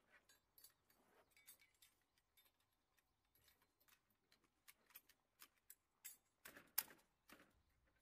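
Metal parts of an M240B machine gun clicking and clacking as it is assembled by hand: a scatter of light clicks, with a sharper clack about seven seconds in.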